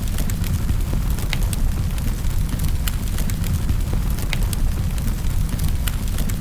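Wood fire in a fireplace crackling: sharp pops and snaps, one or two a second, over a steady low rumble of the flames.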